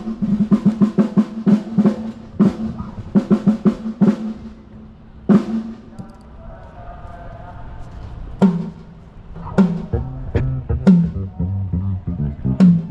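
Drum kit played during a soundcheck: fast rolls and fills on a snare or high tom in the first few seconds, then after a short pause a slower run of lower tom and kick drum hits.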